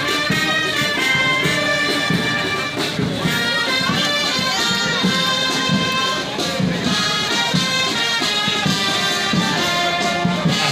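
Military band playing, with brass and wind instruments carrying a melody of held notes.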